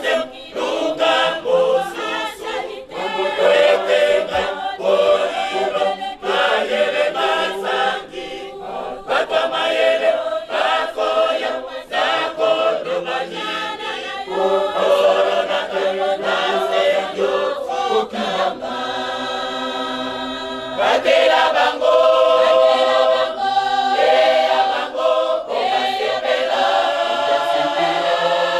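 A large choir singing a hymn together, in phrases of a few seconds with short breaks between them.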